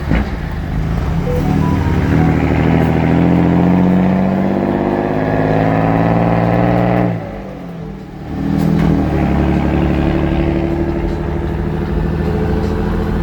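Mercedes engine running under load with a deep rumble, its pitch climbing steadily. About seven seconds in it eases off briefly, then pulls again and holds at a steady pitch.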